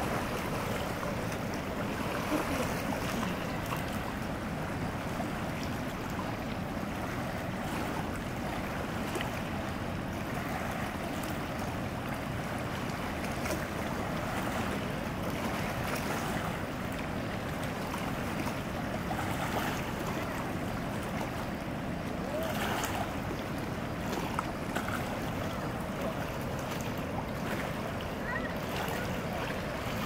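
White water rushing and churning steadily out of the spillway gates of a hydroelectric dam.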